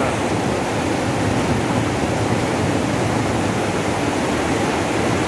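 Steady rushing of fast-flowing water, an even noise with no breaks, from tidal river water pouring through a sluice whose gate has failed to close.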